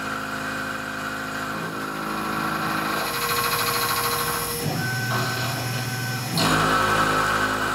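A 38 mm insert face mill on a Tormach PCNC 1100 CNC mill cutting 304L stainless steel: the spindle's steady whine mixed with the sound of the cut. The tone changes about four and a half seconds in and grows louder about six and a half seconds in.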